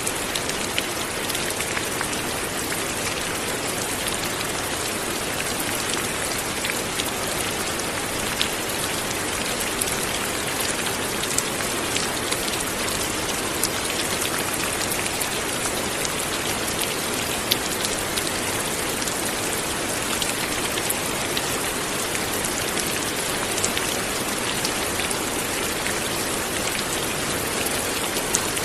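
Steady light rain falling, an even hiss with individual drops ticking sharply here and there.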